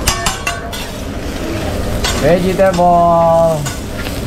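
Metal spatulas clicking and scraping on a hot teppanyaki griddle while vegetables and fried rice sizzle. A rapid run of spatula taps comes in the first second. A little past the middle, a voice holds one long note for about a second.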